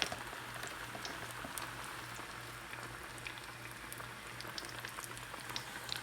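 Battered bass strips deep-frying in a pot of grease hot enough to smoke: a steady sizzle with scattered pops and crackles.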